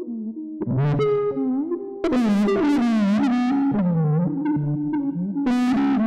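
Electric guitar processed through on-board computer control into a synth-like tone, playing an improvised line modelled on bird song. Plucked notes slide and bend in pitch, with sharp bright attacks about half a second in, a dense cluster of notes around two to three seconds in, and another bright attack near the end.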